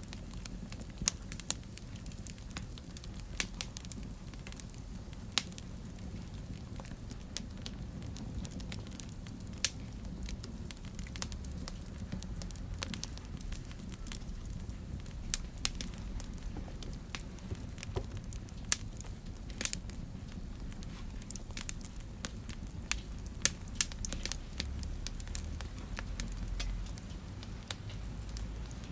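Wood fire burning in a fireplace: a steady low rumble of flame with frequent sharp, irregular crackles and pops.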